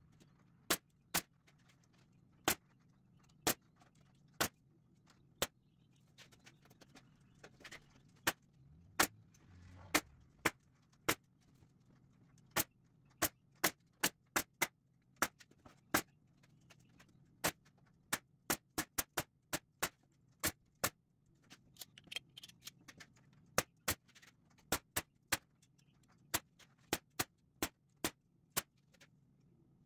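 Pneumatic staple gun firing repeatedly, sharp snapping shots at irregular intervals and sometimes several a second, as chicken wire is stapled to a wooden frame. A faint low hum runs underneath.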